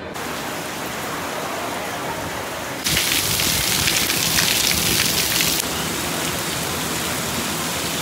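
Heavy rain falling steadily on paving and foliage, an even hiss. About three seconds in it grows louder and sharper, and a couple of seconds later it eases back.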